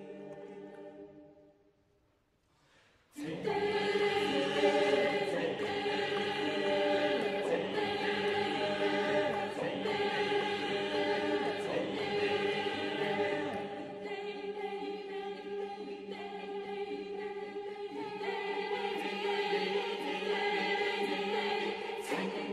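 Twelve-voice mixed chamber choir singing sustained chords. A chord fades away, there is a moment of silence, then the full choir comes in suddenly and loudly about three seconds in. The held harmonies shift, soften in the middle and swell again near the end.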